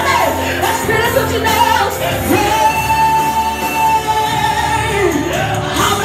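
Live gospel worship song: a woman sings into a microphone through the hall's PA over a band, holding one long note through the middle.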